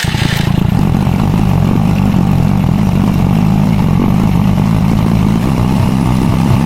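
SYM EZ 110 scooter's small single-cylinder four-stroke engine running steadily, coming in suddenly and loudly right at the start.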